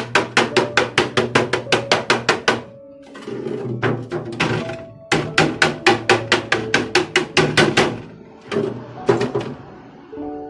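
Rapid light hammer taps on the sheet metal of a tin-plate oil tin, about six a second, in two runs of a few seconds each with a pause between, then a few single strikes near the end.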